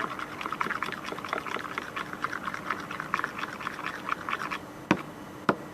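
Spoon stirring clear-shampoo slime mixture in a container: a fast run of wet scraping, clicking strokes, then two sharp taps near the end.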